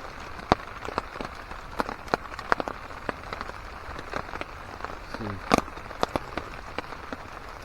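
Rain pattering on a camp tarp: a steady hiss with irregular sharp drips tapping throughout.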